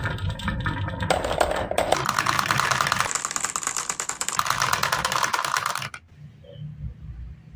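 A crowd of marbles rolling down a carved wooden zigzag track, clattering against the wood and each other as they drop into a plastic toy dump-truck bed. The dense rattle stops suddenly about six seconds in.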